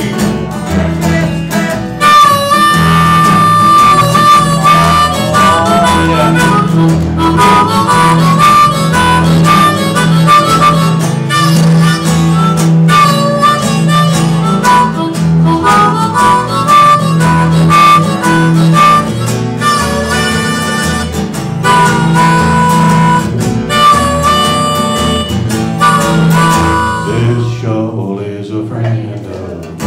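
Blues harmonica solo, held and bending notes played with cupped hands into a microphone, over a steady acoustic guitar and upright bass backing. The harmonica comes in about two seconds in and drops out a couple of seconds before the end.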